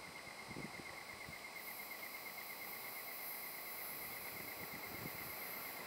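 NJ Transit bi-level commuter train pulling out slowly past the platform: a faint, rapidly pulsing high whine over a low rolling rumble. A second, higher whine comes in after about a second and a half.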